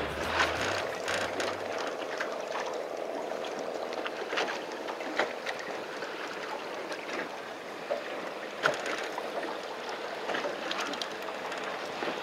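On the deck of a fishing boat: a steady wash of water and wind, broken by scattered light knocks and clicks. A faint low engine hum dies away in the first two seconds.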